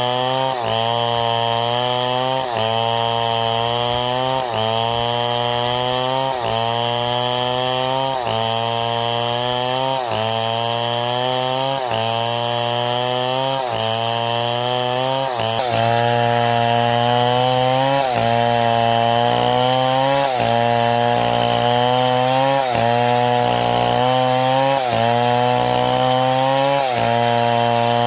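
Power saw cutting wood: its engine pitch climbs and drops back in a very regular cycle about every two seconds, getting a little louder about halfway through.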